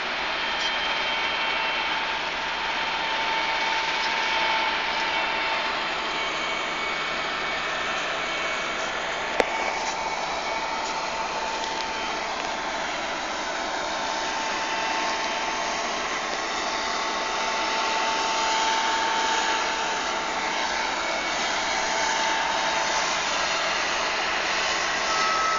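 New Holland TC56 combine harvester running as it cuts grain, a steady mechanical drone with a slightly wavering whine. A single sharp click sounds about nine seconds in.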